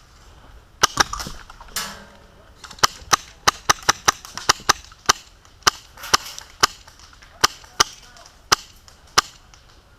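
Airsoft guns firing single shots, sharp snaps in an irregular run of about two to three a second, with a pair about a second in.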